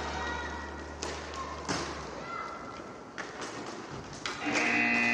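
Inline hockey sticks and skates knocking and tapping on the puck and rink floor in a large hall. About four and a half seconds in, a steady buzzer starts as the period clock runs out.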